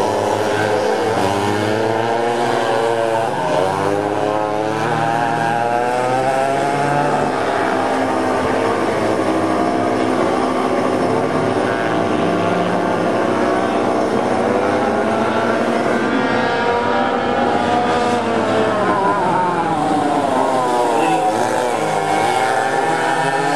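Several vintage go-kart engines racing together, their pitches rising and falling as the karts brake and accelerate. A kart passes close a few seconds in and again near the end.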